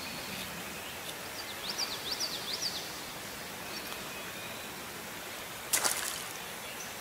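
Steady rush of a creek's flowing water, with a bird singing a quick series of rising and falling whistled notes between about one and a half and three seconds in. A short cluster of sharp clicks comes near the end.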